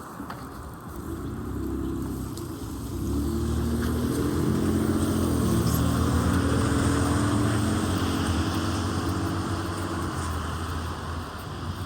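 A motor vehicle driving past, its engine hum growing louder over several seconds and then fading away, with tyre hiss on a wet street.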